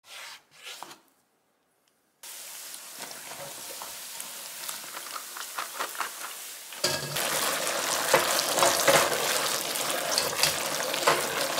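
A knife cutting twice through raw pork loin on a wooden board, then hot oil sizzling as battered pork pieces fry. About seven seconds in it turns to louder sizzling with ladle scrapes and clicks as the fried pork is stir-fried in a wok with sweet-and-sour sauce.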